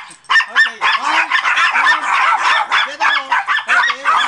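Several small dogs, chihuahuas among them, yapping excitedly in rapid overlapping barks and yips, worked up over a tennis ball held up for them to chase.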